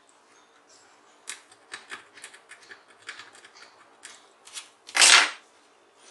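Small irregular clicks and taps of metal tweezers and a tester probe against an LED TV backlight strip, then one louder, short clatter about five seconds in as the tweezers are put down on the table.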